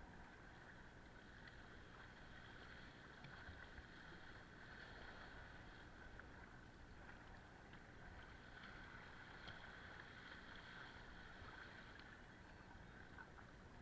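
Faint, steady swish of water moving along a small boat's hull, with a few tiny knocks and splashes.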